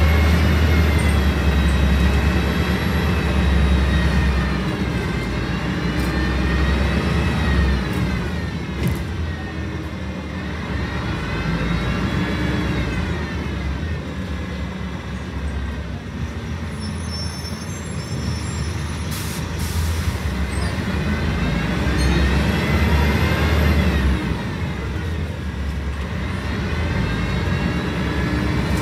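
Scania L113CRL city bus heard from inside the cabin: its rear-mounted 11-litre six-cylinder diesel and drivetrain run under a steady low rumble. A whine rises and falls in pitch several times as the bus speeds up and slows. A couple of short sharp noises come about two-thirds of the way through.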